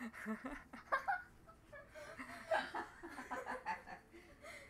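A child giggling in short bursts.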